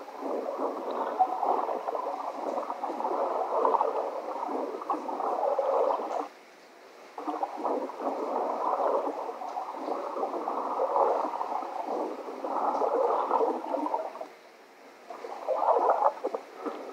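Muffled underwater gurgling and water noise from an underwater camera's soundtrack, played back through a laptop's small speakers, so it sounds thin with no bass. It runs in long stretches with two short breaks.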